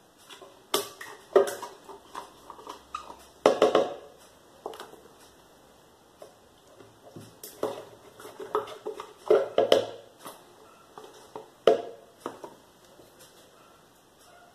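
Small cardboard cartons of cream being handled, opened and emptied into a plastic container: irregular clicks, knocks and crinkles, with a few louder knocks now and then.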